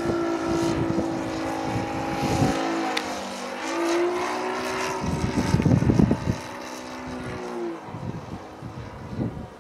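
Engine of a .53-class RC 3D fun-fly model airplane buzzing in flight. Its pitch holds, dips for about a second a quarter of the way in, climbs back, then drops again near the end. Gusts of wind rumble on the microphone about five to six seconds in.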